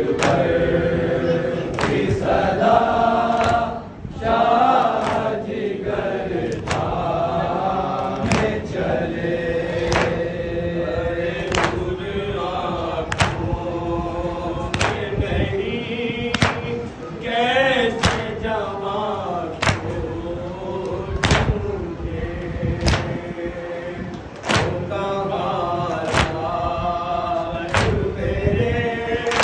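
A group of men's voices chanting a nauha, the Shia Muharram lament, over a steady beat of hands slapping on chests (matam), a sharp slap a little more than once a second.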